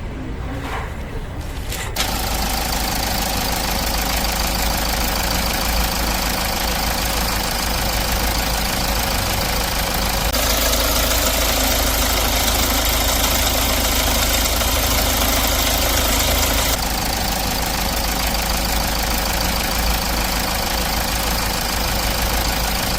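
R-series diesel engine running, its stretched timing chain set just replaced. The sound comes in abruptly about two seconds in and holds steady, with a brighter, harsher stretch in the middle.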